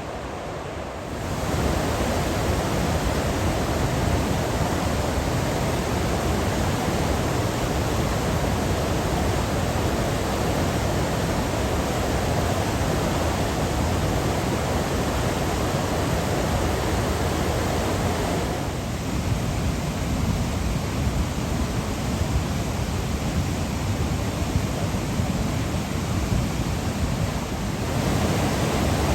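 Steady rushing of a waterfall, a dense even roar of falling water. It grows louder about a second in, turns softer and duller for a stretch from about two-thirds through, and swells again near the end.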